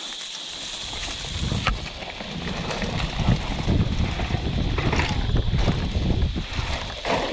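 Wind buffeting the microphone of a camera worn by a mountain biker riding over rough grass, building up about half a second in, with a few knocks and rattles from the bike over bumps.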